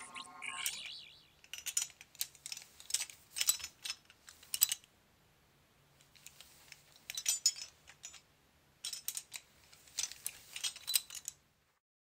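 Recreated 13th Doctor sonic screwdriver sound effect. A shimmering chime sweep rises and fades in the first second. Irregular clusters of quick metallic clicks and ticks follow, stopping just before the end.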